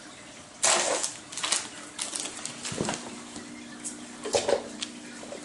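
Irregular scuffling, rustling and clicks as a ferret is grabbed and wrestled by hand in play, with a loud rustling burst a little over half a second in.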